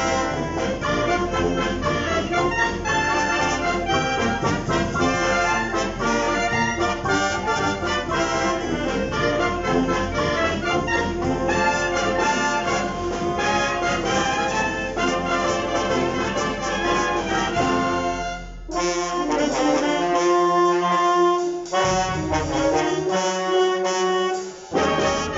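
Wind band playing live, with brass to the fore. About 18 seconds in, the full band drops back to lighter, sparser phrases with a couple of short breaks.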